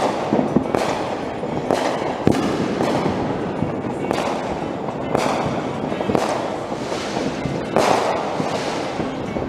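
Many fireworks and firecrackers going off at once: a dense crackle with louder bangs about once a second, each echoing away.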